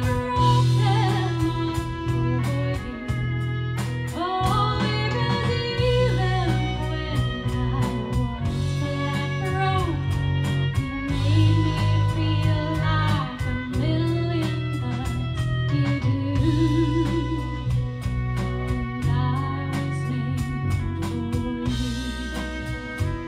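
Live band playing a song: a woman singing lead over bass guitar, drum kit and fiddle, with a steady beat.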